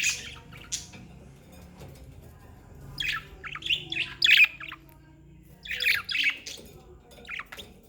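Budgerigars chirping and squawking in short clustered bursts, with quiet gaps between them.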